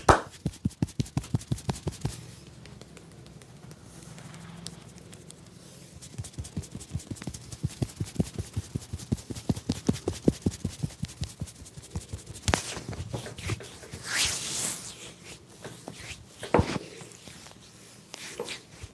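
A barber's hands tapping rhythmically on a customer during a percussion massage, in quick runs of about five or six strokes a second. The runs break off for a few seconds between them, and softer rubbing sounds come near the end.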